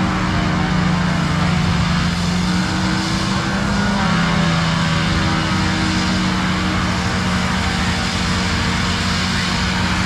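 An engine running steadily under a loud drone; its note drops a little about four seconds in.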